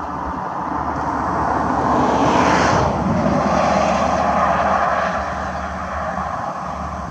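A vehicle passing by, its rushing noise swelling and then fading, with a hiss that drops in pitch as it goes past about three seconds in.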